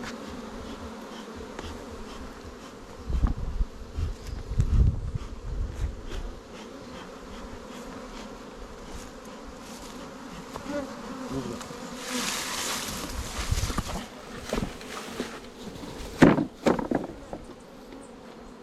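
A mass of honey bees buzzing steadily around an open hive box. There are a few low bumps and knocks from handling, and a brief hiss about two-thirds of the way through.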